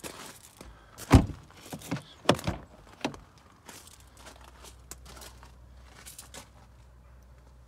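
An Audi S6 rear door being opened: a loud clunk of the latch about a second in, followed by a few lighter knocks and thumps.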